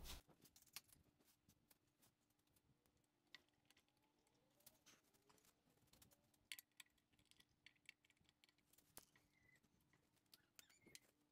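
Near silence: room tone with a faint steady hum and a few faint, scattered small clicks.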